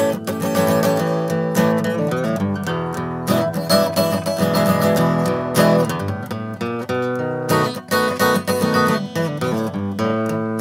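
Music of a strummed guitar, chords struck in quick succession throughout.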